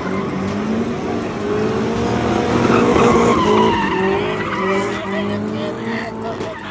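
A car engine revving up and down hard while the tyres screech in a sustained skid, as in a burnout or donuts.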